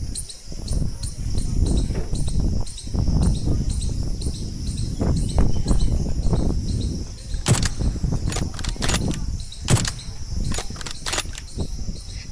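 Insects chirping steadily, about three chirps a second, over a high continuous hiss, with uneven wind rumble on the microphone as the loudest sound. A few sharp clicks come in the second half.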